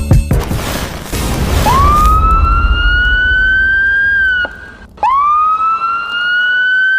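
Two siren-like wails in an intro sound effect. Each rises quickly, then holds a slowly climbing high tone for about three seconds before dipping, over a steady rushing noise. A music beat ends just as it begins.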